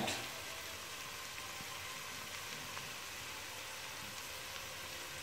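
Faint steady hiss of water heating on the stovetop, without clinks or knocks.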